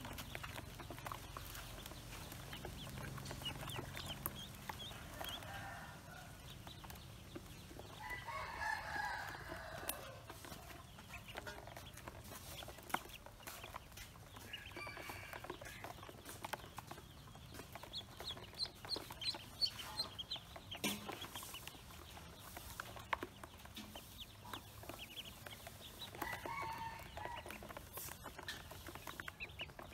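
A group of ducklings peeping in short high chirps, coming in bursts every few seconds, over many small taps and clicks of bills pecking at feed in a plastic basin.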